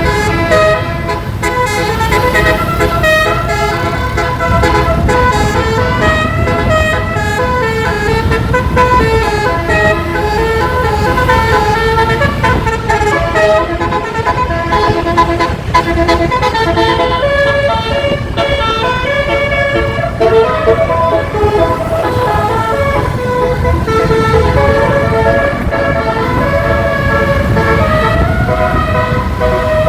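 A 12-note basuri musical air horn on a bus, sounding through roof-mounted trumpets and playing a continuous melody of held notes that step up and down in pitch, several notes at once, over a low rumble.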